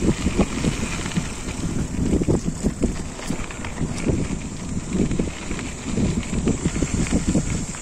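Forever FM075 mountain bike rattling and knocking over rocky trail at speed on a descent, an irregular run of jolts, with wind rumbling on the microphone.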